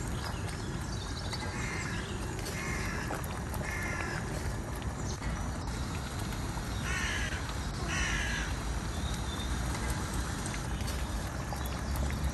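Thick dal simmering in a steel kadai over a gas flame, a steady low bubbling hiss. Over it a bird calls about five times in short calls, the loudest two a second apart past the middle.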